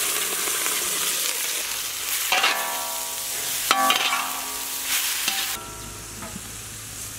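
Diced raw chicken landing in hot butter in a large iron wok and sizzling loudly, while a metal spatula stirs and knocks against the pan, which rings out about three times. The sizzle drops away about five and a half seconds in.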